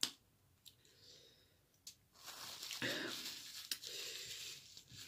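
A few sharp clicks, then about three seconds of close rustling and crinkling that starts a little after two seconds in.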